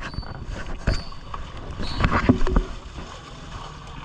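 Irregular knocks, clunks and scrapes of a small boat's hull and fittings as a heavy engine is levered and clamped onto it, with a few short squeaks.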